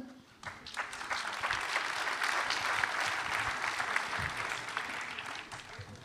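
Audience applauding: a crowd's clapping that starts about half a second in, builds for a couple of seconds and then dies away.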